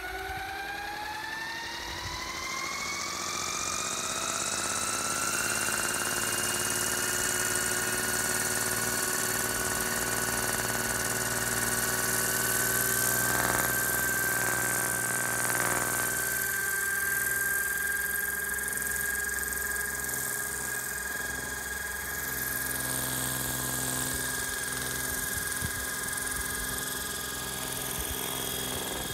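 Hirobo CH-47 Chinook electric RC helicopter's motor and twin rotors spooling up: a whine that rises steeply in pitch over the first five seconds or so, then holds a steady high pitch over a loud rotor hiss. Near the end it lifts off into a low hover.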